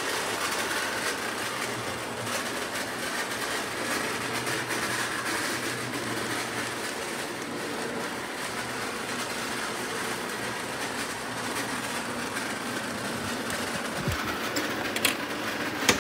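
Lionel O gauge model freight train rolling along three-rail track: a steady rumble of metal wheels with a low motor hum, and a sharp click near the end.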